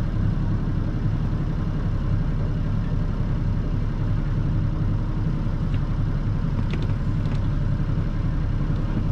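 A sailboat's inboard diesel engine running steadily at low revs, a deep even rumble, while the boat is manoeuvred slowly under power to dock.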